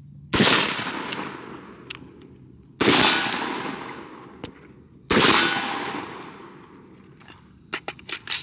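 Three rifle shots from a 14.5-inch BCM AR-15 with a Surefire muzzle brake, a little over two seconds apart, each ringing out and fading over about two seconds. A few light clicks near the end.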